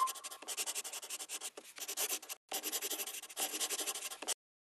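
A pen scratching across paper in quick strokes. There is a short break about two and a half seconds in, and it stops shortly before the end.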